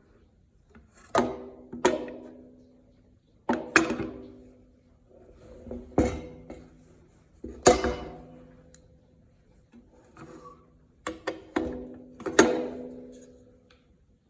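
Metal parts of a roller stand knocking together as it is assembled: about nine separate clanks, some in quick pairs, each ringing on briefly.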